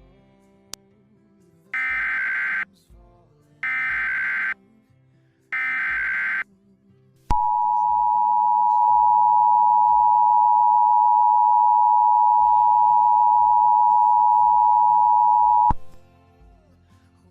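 Emergency Alert System header: three short bursts of screeching digital data tone, about a second each and a second apart, followed by the EAS two-tone attention signal (853 and 960 Hz) held steady for about eight seconds and cutting off suddenly.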